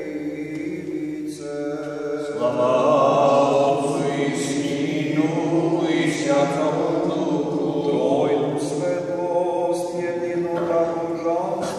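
Unaccompanied Serbian Orthodox liturgical chant, sung continuously by a small group of voices reading from service booklets.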